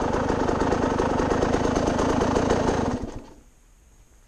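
Dirt bike engine idling with a rapid, even beat, then shut off about three seconds in, dying away within half a second.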